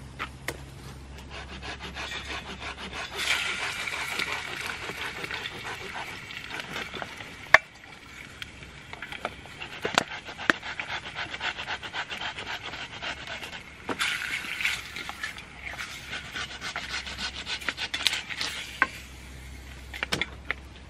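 Close handling noise of rustling and scraping, coming in louder spells, with a few sharp clicks or knocks, the loudest about a third of the way in.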